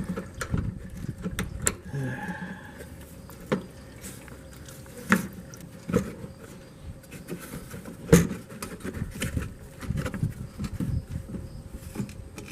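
Scattered, irregular clicks and knocks of a small wrench and metal fasteners as the underbody cover plate is unbolted from beneath a car, over a faint steady hum.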